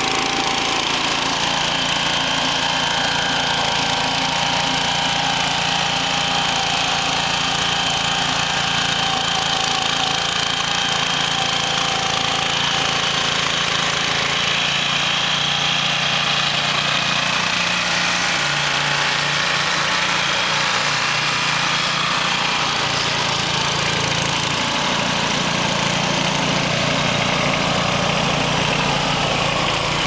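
Blue Bird D110 towed spring-tine dethatcher running, its small petrol engine spinning the tine rotor as it rakes thatch out of the turf, together with the ride-on garden tractor's engine towing it. A steady, continuous engine sound.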